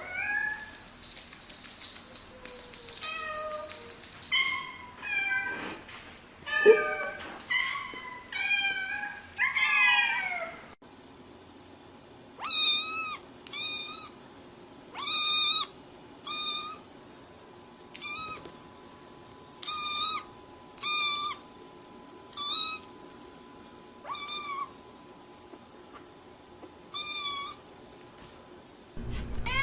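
Cats meowing. First come several meows of varying pitch, some gliding up or down. Then, after a cut, a single cat gives a long series of short, alike meows, about one every second or so.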